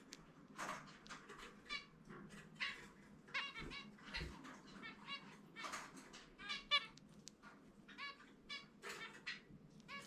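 Zebra finch singing: a string of short, squeaky chirping notes repeated in quick phrases, several a second.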